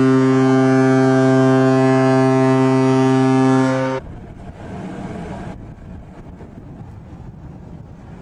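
A ship's horn sounding one long, steady, low-pitched blast that cuts off abruptly about four seconds in. A quieter rumbling hiss remains after it.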